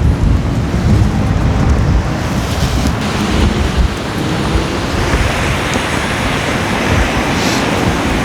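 Loud, gusting wind buffeting the microphone, a rushing noise with a heavy low rumble.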